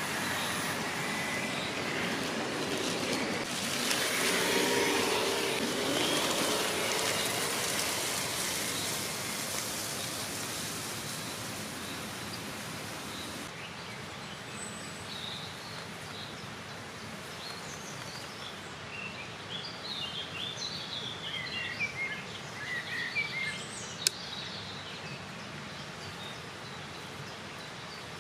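Steady outdoor rushing noise that thins about halfway through, then birds chirping in short scattered calls, with a single sharp click near the end.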